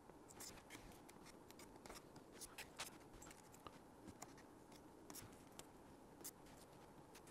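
Near silence with faint, irregular clicks and ticks, a few each second, from hands handling and pressing masking tape onto a model rocket's wing on a cutting mat.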